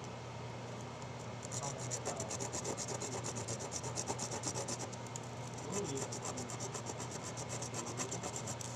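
A small ceramic sample is rubbed back and forth by hand on abrasive paper, grinding its surface flat. The quick, even rasping strokes come about five a second, starting a second and a half in, with a short pause about halfway. A steady low hum runs underneath.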